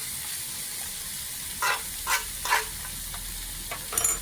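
Chicken fried rice and shrimp sizzling steadily in oil in a skillet. Three short louder sounds come a little past halfway, and there is a brief click near the end.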